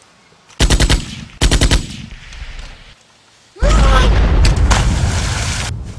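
Two short bursts of rapid gunfire, then a loud grenade explosion lasting about two seconds, with a yell at its start; dubbed-in sound effects.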